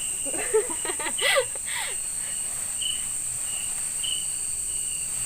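Night-time tropical forest insect chorus: a steady high buzz of crickets and other insects, with a short high chirp repeating at an even pace. A few brief louder sounds come in the first two seconds.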